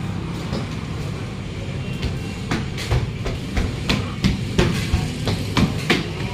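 A quick run of sharp knocks and clatters, about three a second, over a steady low hum.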